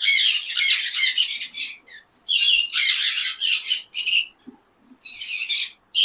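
Conures squawking: rapid, harsh, high-pitched calls in three runs, the first two about two seconds each, the last brief.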